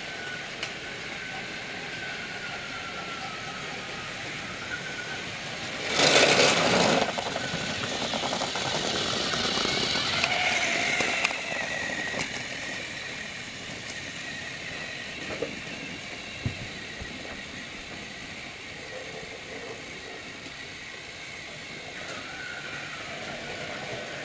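Battery-powered Trackmaster toy train motor whirring along plastic track with a faint wavering whine. About six seconds in comes a sudden loud noise lasting about a second, followed by several seconds of louder running before it settles back.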